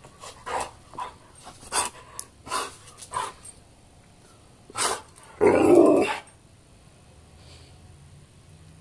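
Dog barking and growling while playing tug of war: a run of short barks over the first few seconds, then a longer, louder one about five and a half seconds in.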